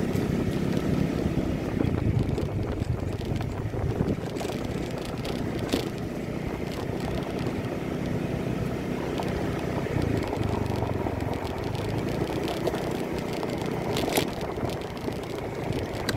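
Suzuki Address 110 scooter's small single-cylinder engine running steadily under load while climbing a dirt and gravel road, with wind buffeting the phone microphone.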